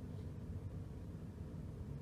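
Faint, steady low background rumble of ambient noise, with one faint click about a quarter of a second in.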